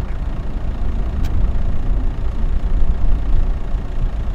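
Jet engine noise from an Airbus ACJ319's two IAE V2500 turbofans at climb power after takeoff, heard on the ground as a steady low rumble.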